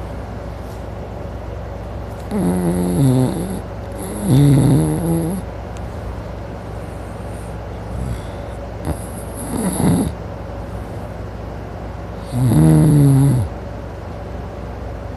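A sleeping man snoring loudly: four heavy snores, each about a second long and spaced irregularly, with quieter breathing between them.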